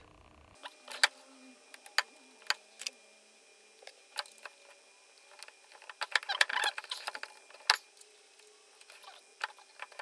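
Sharp plastic clicks and taps from handling a plastic child-safety cabinet latch and fitting it inside a wooden drawer. About six seconds in comes a short burst of rubbing and scraping mixed with clicks, and there is one more loud click a little later.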